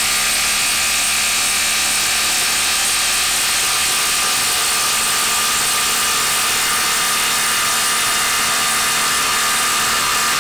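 Milwaukee brushless cordless impact driver running continuously under load, hammering a 6-inch lag screw down into a wood stump.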